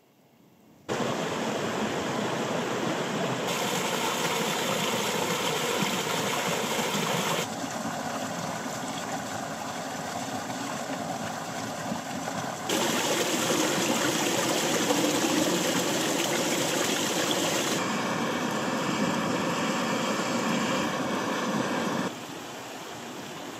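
Mountain river rushing and splashing over boulders, heard in a run of short cuts whose loudness jumps abruptly every few seconds. The first second is near silent.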